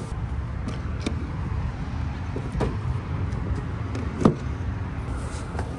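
A car door opened, then a Tesla Supercharger connector pushed into a Tesla Model Y's charge port, seating with a sharp thump about four seconds in. A few lighter clicks and knocks come before it, over a steady low rumble.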